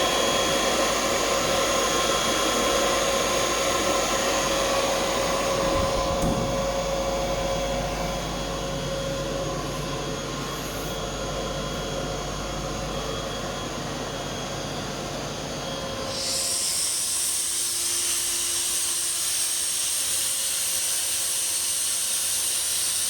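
Kaeser Sigma SX6 rotary screw air compressor running steadily, a low hum with a few fixed whining tones. About two-thirds of the way through, the low hum drops away and a steady hiss of escaping air takes over.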